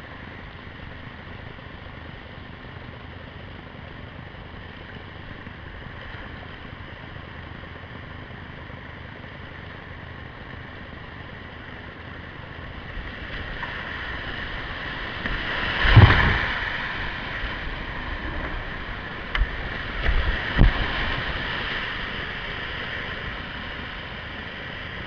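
Rushing whitewater of a river rapid heard from a kayak in the current, swelling about halfway through, with a loud thump at its peak and a few more thumps a few seconds later.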